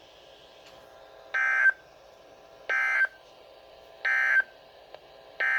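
Emergency Alert System SAME digital data bursts: three short, identical buzzy tone bursts about 1.4 seconds apart, the End of Message code that closes the flood warning. Near the end, the longer data burst of the next alert's header begins.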